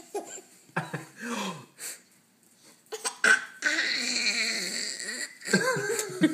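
Baby vocalizing and laughing: short voiced coos, then a long breathy laugh about three and a half seconds in, and a pitched squeal near the end.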